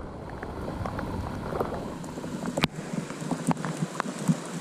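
Fast-flowing river rushing over rapids, with scattered ticks of rain dripping throughout and one sharper tick a little past halfway.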